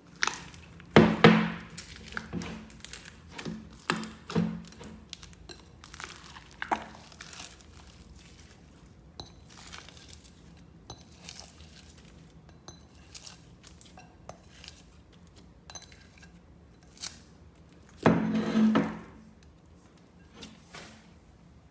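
Slime being handled close to the microphone: a run of sharp, sticky clicks and crackles, with two louder, longer sounds, one about a second in and one near the end.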